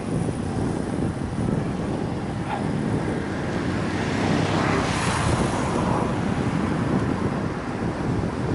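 Wind buffeting the microphone of a camera on a moving bicycle, a steady low rumble. About four to six seconds in, a passing vehicle swells and fades over it.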